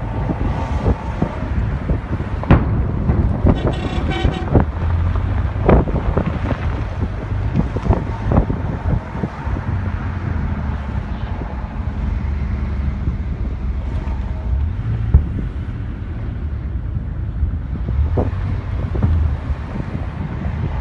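Sharp bangs of exploding ammunition, about half a dozen spread irregularly, over a steady low rumble and wind on the microphone, with a vehicle horn sounding briefly about four seconds in.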